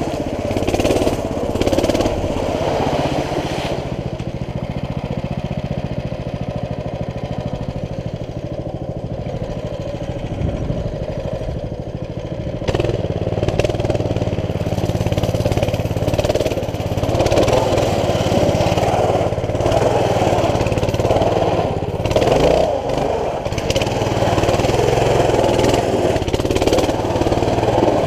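CT200U mini bike's small single-cylinder four-stroke engine running under the rider, throttle rising and falling. It gets louder about halfway in as the bike rides through shallow floodwater.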